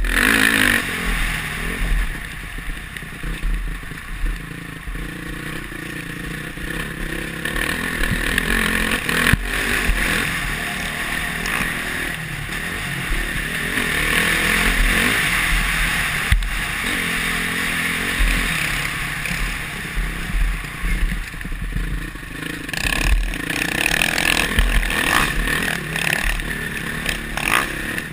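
Honda CRF450R four-stroke single-cylinder motocross engine running under riding, its revs rising and falling, heard through a helmet-mounted camera. Rattles and knocks from the bike come in the last few seconds.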